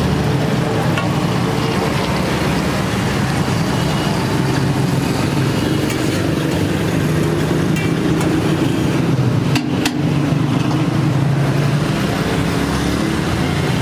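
Steady roadside traffic noise with a motor vehicle engine running, and a single sharp knock about ten seconds in.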